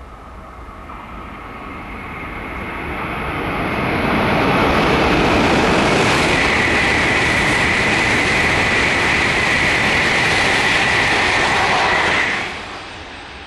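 E2 series Shinkansen bullet train passing through a station at speed without stopping. The rushing noise builds over about four seconds and holds loud with a steady high whine on top, then drops off sharply about twelve seconds in.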